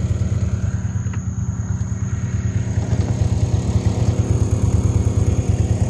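A small engine running steadily, an even low throb with no change in speed.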